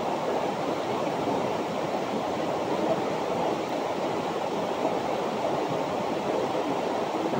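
Shallow stream flowing, a steady, even rush of water.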